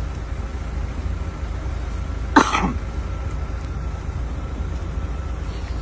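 A person coughs once, sharply, about two and a half seconds in, over a steady low rumble.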